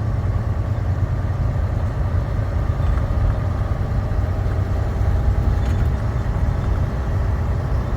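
Heavy truck driving down the road: a steady low engine rumble with road noise.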